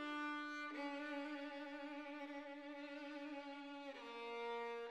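Background music: a slow melody of long held notes, changing pitch twice.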